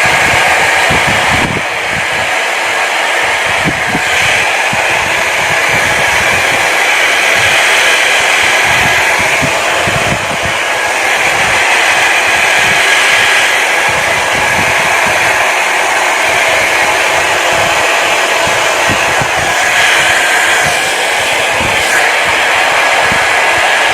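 A foldable hot-and-cold hair dryer running at full blow: a steady, loud rush of air with an uneven low rumble underneath. Its loudness dips briefly a few times.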